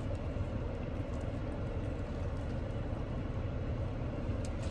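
Steady low rumble inside a parked car's cabin, with a few faint clicks near the end.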